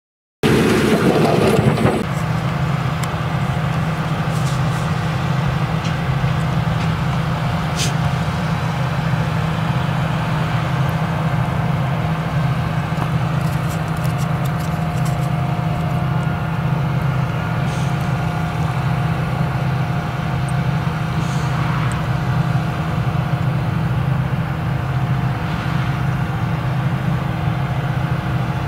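Claas Jaguar 970 forage harvester with its MAN V8 engine running steadily under load while chopping sorghum: a constant low drone with a steady whine over it, starting abruptly about half a second in.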